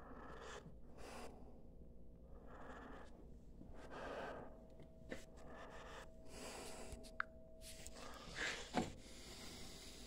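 Quiet room sound with faint breathing and soft handling noise close to the microphone, a faint steady hum coming in about halfway, and one sharp click about seven seconds in.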